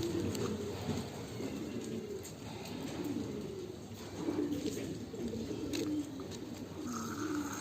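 Domestic pigeons cooing over and over, with a few light clicks.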